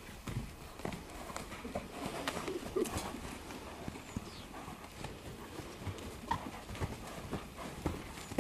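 A Quarter Horse's hooves beating on the soft dirt footing of a round pen as it circles on a lunge line: a run of uneven thuds and knocks.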